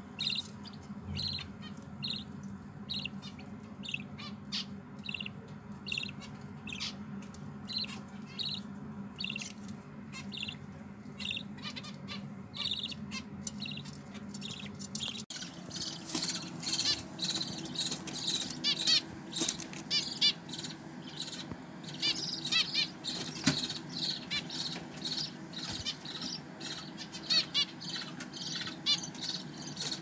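Budgerigar chicks at the nest peeping: short high chirps repeated about twice a second. About halfway the sound changes to a denser, louder chatter of chirps from finch nestlings.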